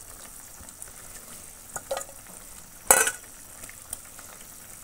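Cauliflower and potato curry simmering in a wok, a steady low bubbling hiss, with a few knocks as pieces of fried fish are put into it; the loudest, a sharp knock, comes about three seconds in.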